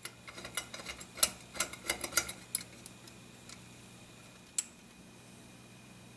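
A quick, irregular run of light metal clicks and clinks for about three seconds, then one more click a little later, as the shotgun barrel is set into a steel bench vise and the vise is tightened to compress the ejector and its spring.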